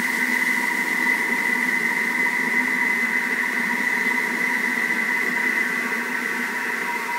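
Thermomix motor running at a steady speed, spinning the butterfly whisk to cream butter and caster sugar: a steady high whine over a lower hum.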